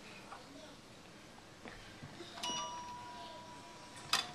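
A single toy piano note struck about halfway through, ringing steadily for a second and a half. Faint knocks of the keys come before it, and a sharper knock comes near the end.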